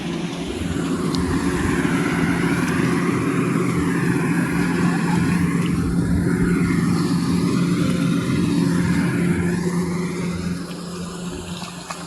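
An engine running steadily, its drone fading away near the end.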